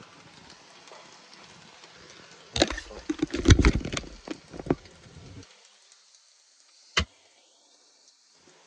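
Handling noise from a phone being moved and set down on a wooden worktop: a cluster of knocks and rubbing over about three seconds, then a single sharp click a couple of seconds later.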